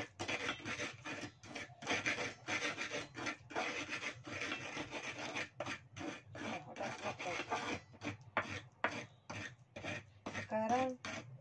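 Pestle (ulekan) grinding spice paste in a cobek mortar: quick repeated rubbing and scraping strokes of the pestle against the mortar's face.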